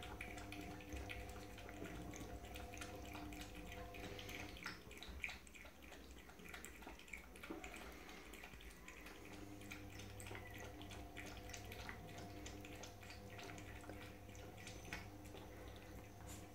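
Chihuahua puppy lapping water from a bowl: a faint run of small wet clicks, over a steady low hum.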